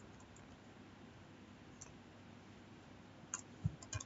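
Faint computer keyboard keystrokes: a single tap about two seconds in, then a quick run of several keys near the end, over quiet room tone.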